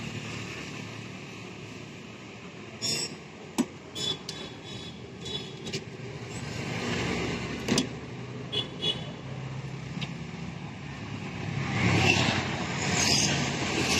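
Scattered light clicks and knocks from hands and tools working in a car's engine bay, over a steady hum of road traffic that swells to its loudest near the end.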